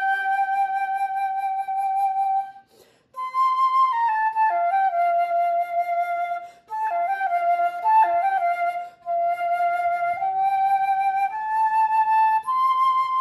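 Solo concert flute playing a slow melodic passage in phrases, opening on a long held note, with short pauses for breath about three seconds in and again around seven and nine seconds, and ending on a held higher note.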